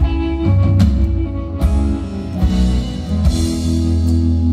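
Live band playing an instrumental stretch between sung lines: electric and acoustic guitars over bass and drum kit.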